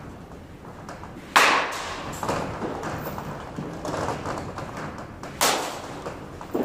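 Baseball bat striking a pitched ball twice, about four seconds apart: sharp impacts with a short ringing tail, the first a little over a second in and the second near the end. Softer knocks in between from balls landing in the cage netting and on the turf.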